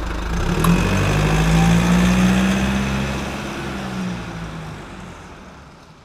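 Car engine running while driving, heard from inside the cabin along with tyre and road noise; it grows a little louder about a second in, then fades away near the end.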